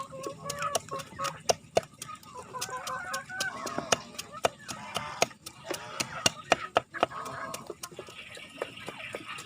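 Chickens clucking, with many sharp taps and clicks scattered among the calls.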